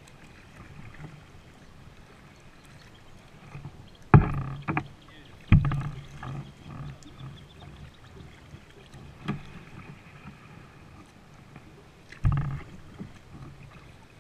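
Kayak being paddled: paddle blades dipping and dripping against a low steady background. A handful of sudden knocks and splashes cut through, three of them close together about four to six seconds in, and more around nine and twelve seconds.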